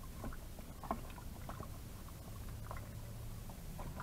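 Wooden spoon stirring broth and chopped vegetables in an Instant Pot's inner pot: faint liquid stirring with scattered soft knocks of the spoon against the pot.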